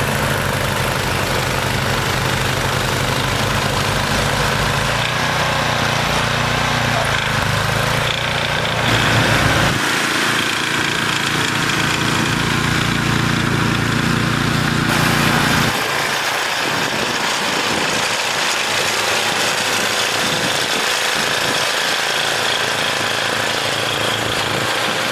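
Two-stage walk-behind snow blower's small gasoline engine running steadily under load while it throws snow. The engine note changes abruptly three times.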